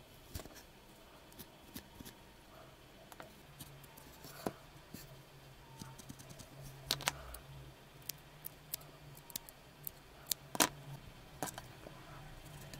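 A felting needle working into a needle-felted wool cat face: irregular small clicks and crunches, two of them sharper in the second half, over a faint low steady hum.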